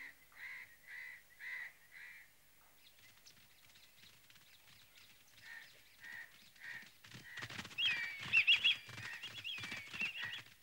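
Cartoon jungle birds calling: about five caw-like calls in the first two seconds. From about seven seconds in come quick warbling chirps over a rapid patter of short taps.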